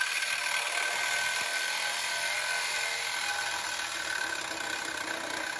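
Cordless reciprocating saw running steadily as it cuts through a rusty steel exhaust pipe, a continuous motor whine mixed with the blade grinding on the metal.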